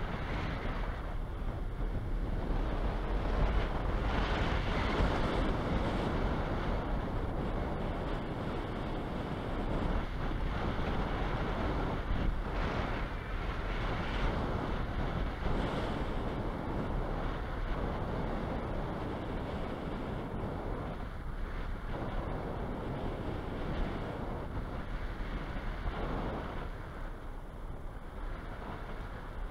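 Airflow rushing over the microphone of a camera mounted on a hang glider in flight, a steady noisy rush that swells and eases a little.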